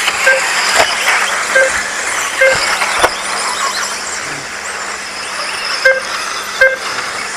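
Radio-controlled racing buggies running round the track: a steady whirring hiss of motors and tyres, broken by five short, high beeps at uneven intervals, typical of a lap-timing system registering cars crossing the line.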